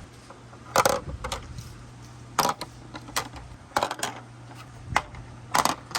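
Balls rolling down a handmade marble run, clicking and clacking against the track and each other in quick clusters about once a second, each hit ringing briefly.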